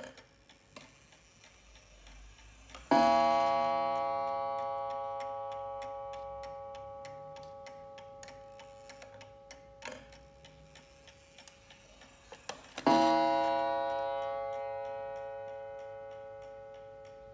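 Vintage Art Deco mantel clock ticking steadily while its coil gong strikes twice, about ten seconds apart. Each strike rings on and fades slowly. The second strike comes as the minute hand is turned to the hour.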